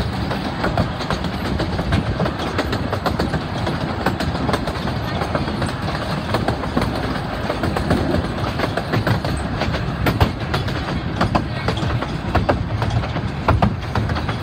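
Narrow-gauge passenger train running along the track: a steady rumble from the carriages, with frequent irregular clicks and clacks from the wheels on the rails.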